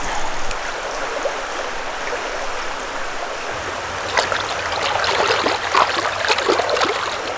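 Mountain stream water running steadily, with irregular short sharp sounds in the second half.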